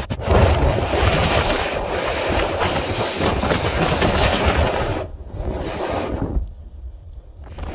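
A heritage train running along the track, its low rumble heard with wind rushing over the microphone through an open carriage window. The wind rush drops away briefly twice near the end.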